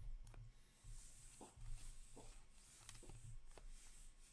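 Faint handling of hockey trading cards: cards sliding against each other and being laid onto stacks on a table, with a few soft ticks, over a low hum.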